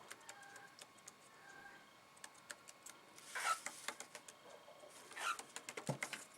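Paper rustling and scraping twice, about three and five seconds in, as a cockatiel picks up and drags pieces of paper across a table, with light clicks between and a soft knock near the end.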